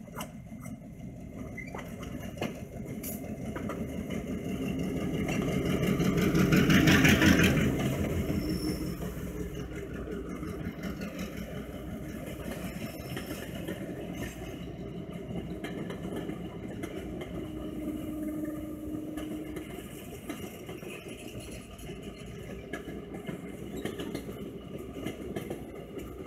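Southern Railway F-unit diesel locomotive passing close by under power, its engine swelling to a peak about seven seconds in, followed by the steady rumble and clicking of passenger coaches and a caboose rolling over the rails.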